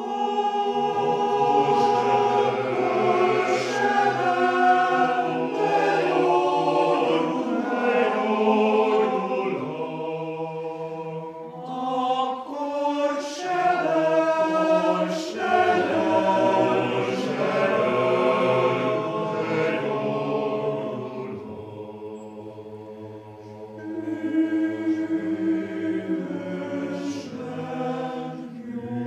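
Male choir singing unaccompanied in several parts, with a softer passage a little past the middle.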